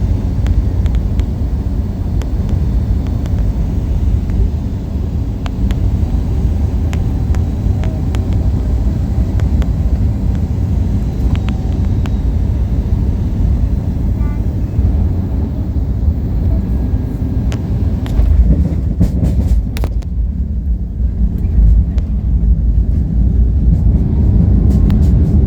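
Aircraft cabin noise during a landing: a steady low rumble with scattered rattles and knocks, and a cluster of sharper knocks about three-quarters of the way through.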